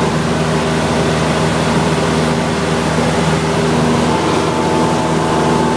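Light single-engine airplane's piston engine and propeller running steadily at an even pitch, heard inside the cockpit. A thin higher tone comes in about four seconds in.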